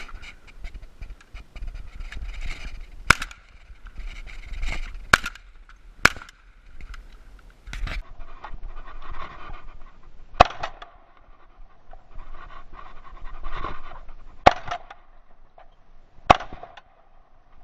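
A series of sharp shotgun shots during a thrush hunt, the last two about two seconds apart near the end making a double on thrushes, with panting between the shots.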